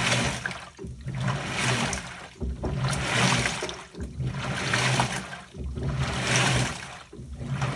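LG Turbodrum direct-drive top-loader agitating: water sloshing and swishing in the tub as the wash action reverses back and forth in short strokes, a swell about every second and a half. A low motor hum runs under most strokes.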